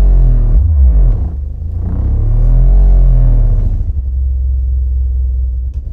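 Massive Audio BOA subwoofer playing loud deep-bass test tones at changing low frequencies, its cone flexing hard. The pitch glides and shifts in the first half, then settles into a steady low tone from about four seconds in.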